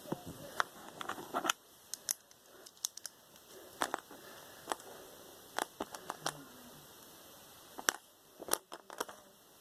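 Lego bricks handled and pressed together: a dozen or so sharp plastic clicks and taps at irregular intervals, with quiet gaps between.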